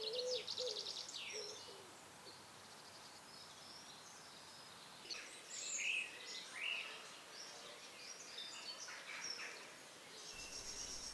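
Small songbirds singing and calling: a fast high trill in the first second or so, then scattered chirps and short song phrases from about five seconds in.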